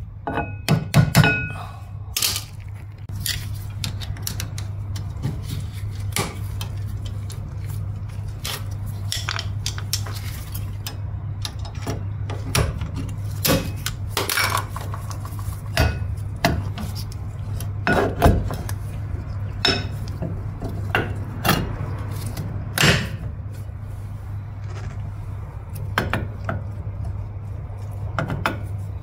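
Irregular metallic clicks, clinks and knocks of brake shoes, return springs and hand tools being handled on a drum brake backing plate while the rear brake shoes are fitted, over a steady low hum.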